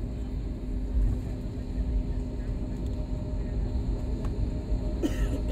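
Steady low rumble of a jet airliner's engines, with a constant hum through it. A short burst of noise comes about five seconds in.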